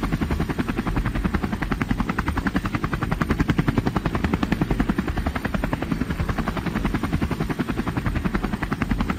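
Aircraft sound effect: a steady, fast rhythmic chopping of blades, played as a show-opening bed that sets up a plane landing.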